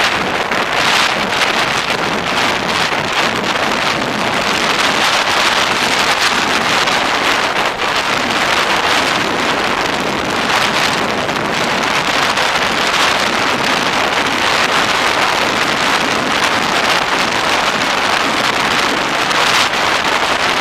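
Steady, loud rush of wind buffeting the microphone on a moving snowmobile, mixed with the running snowmobile's engine and track.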